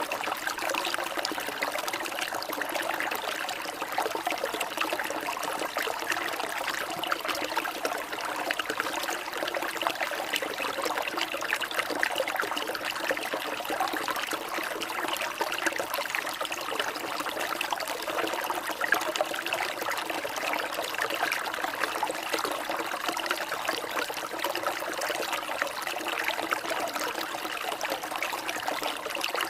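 Water trickling steadily, an even unbroken splashing with no pauses.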